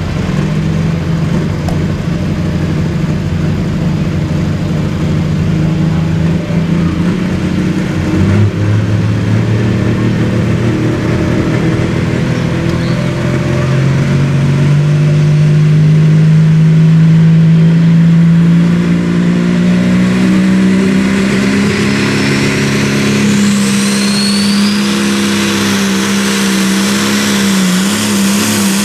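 Limited pro stock pulling tractor's diesel engine running hard, its note dropping once about a third of the way in and then climbing steadily through the middle as the revs build under load.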